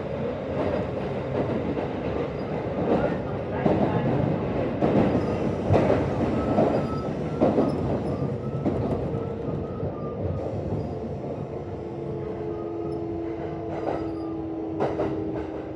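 Kintetsu 1026 series train's VVVF inverter whining in steady tones as the train slows, with a lower tone coming in near the end, over wheel noise and rail-joint clacks that are thickest in the first half. A hoarse, growling noise is mixed into the inverter sound: an abnormal noise this set's inverter does not normally make, a sign of a deteriorating inverter.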